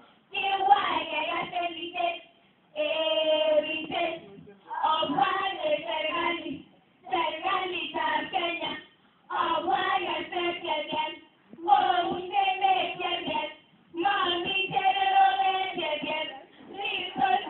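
A group of schoolgirls chanting a Kalenjin poem together in a sung, melodic voice. The chant comes in phrases of about two seconds, each followed by a short pause.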